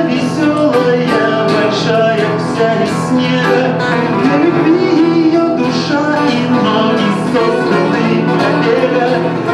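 Male voices singing a song to acoustic guitar accompaniment.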